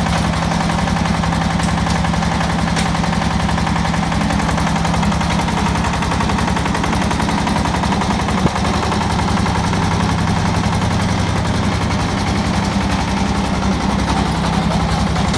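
Yanmar TF105 NL single-cylinder diesel engine on a Yanmar YZC two-wheel hand tractor running steadily with a rapid, even firing beat. There is a short click about eight and a half seconds in.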